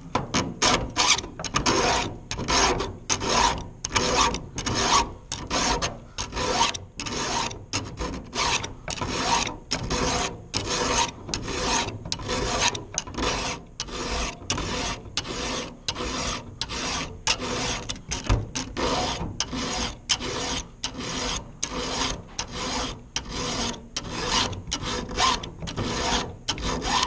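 Round chainsaw file rasping across a steel saw-chain cutter in steady back-and-forth strokes, about two a second, filing a damaged cutter back to a sharp edge.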